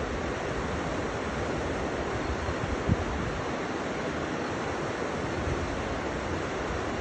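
River water flowing with a steady rushing noise, with one brief low thump about three seconds in.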